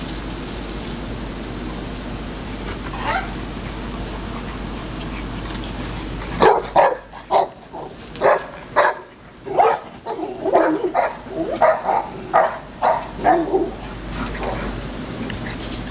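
Dogs barking and yipping in play, a quick run of about fifteen short barks starting about six seconds in and lasting some seven seconds.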